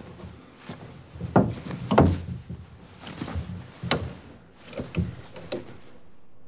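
A run of irregular wooden knocks and thumps, about ten of them, the loudest about one and a half and two seconds in.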